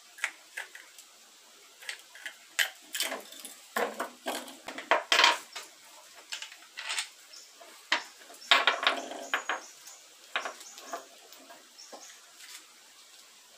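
Hand handling of a switched-off angle grinder's disc assembly: a string of separate metal clicks, clinks and scrapes as the flap disc, washers and nut are taken off and set down on a wooden bench. A longer scrape runs for about a second, about eight and a half seconds in.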